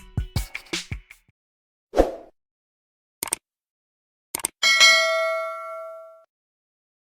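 Short edited sound effects: a dull knock, a couple of quick clicks, then a single bright bell ding that rings out and fades over about a second and a half.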